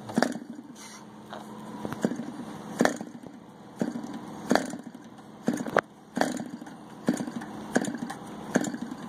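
K&B .61 model airplane two-stroke glow engine being turned over by flipping its propeller, about ten sharp strikes less than a second apart, without catching.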